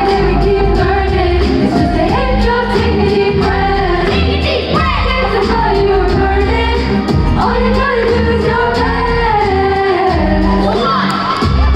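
Live band performing a song: a sung vocal melody over a steady drum beat and bass.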